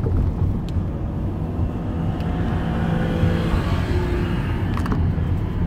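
Car driving, heard from inside the cabin: a steady low engine and road rumble with tyre noise that swells briefly in the middle.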